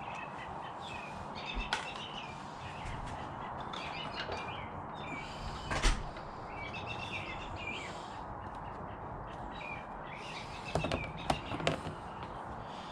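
Small birds chirping repeatedly over steady background hiss, with a few sharp knocks and clicks, the loudest about six seconds in and a cluster near the end.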